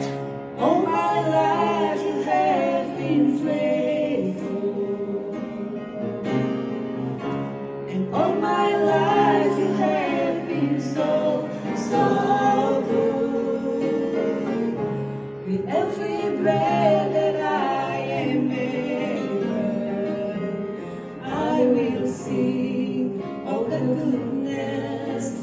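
Two women singing a Christian worship song together in long phrases, over sustained piano accompaniment.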